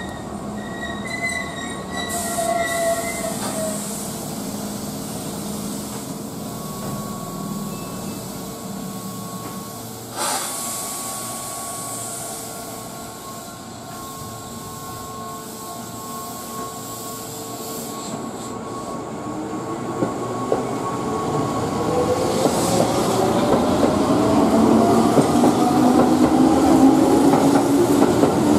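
Keihan electric train standing at the platform with a steady hum, then pulling out: from about twenty seconds in, its motors whine, rising in pitch and getting louder as it accelerates. A single sharp click about ten seconds in.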